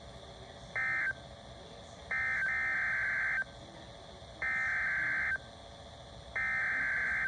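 NOAA Weather Radio SAME digital data bursts, harsh buzzing data tones. A short burst about a second in is the tail of the end-of-message code. It is followed by three longer bursts of about a second each, a second apart: the encoded header of the next alert.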